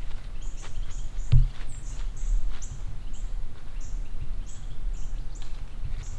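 A small bird chirping repeatedly with short high notes, about two a second, over a steady low rumble. One sharp click sounds about a second and a half in.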